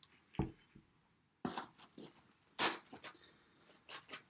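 A plastic water bottle set down on the table with a light thump about half a second in, then a few short rustles as the pizza is handled in its cardboard box.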